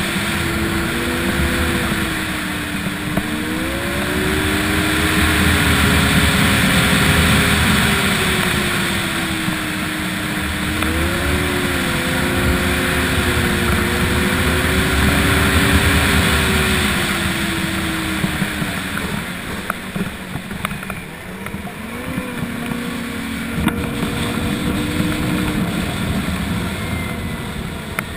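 Yamaha snowmobile engine running while riding, its pitch rising and falling with the throttle; it eases off about two-thirds of the way through, then picks up again.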